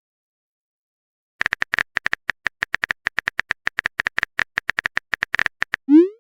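Chat-app keyboard typing sound effect: a fast run of short, tinny key clicks, about eight a second, for about four seconds, followed near the end by a short rising swoosh of a message being sent.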